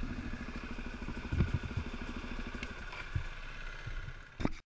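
Dirt bike engine idling with an even, fast low pulse, with a few knocks over it; the sound cuts off suddenly near the end.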